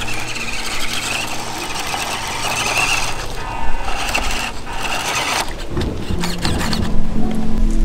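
WPL D12 1/10-scale RC truck driving through a shallow puddle on gravel: its motor running, with water splashing under the tyres.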